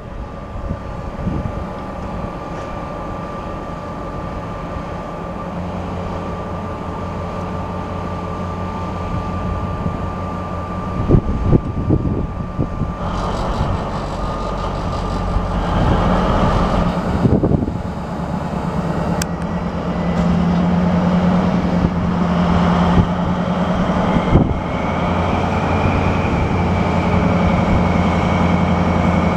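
Class 218 diesel locomotive's MTU diesel engine running steadily with a whine, with a couple of short knocks about a third of the way in. About two-thirds of the way in the engine note grows stronger and louder.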